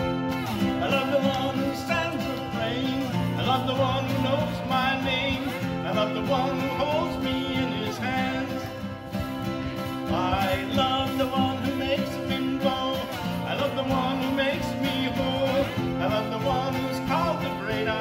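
A man singing a country song to his own acoustic guitar, played laid flat across the lap.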